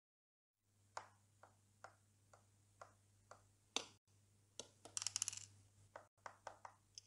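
Faint, scattered clicks and knocks of small objects and plastic boxes being handled on a desk, with a brief rattle about five seconds in, over a low steady hum.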